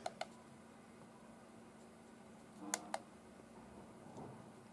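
Push buttons on a small handheld DAB+/FM radio clicking as they are pressed: two quick pairs of clicks, one at the start and another about three seconds in.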